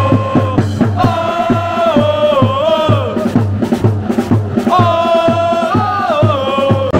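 Football supporters' chant: a crowd singing a stepped tune in unison over a steady drumbeat of about three beats a second. The tune breaks off for a moment in the middle while the drum keeps going.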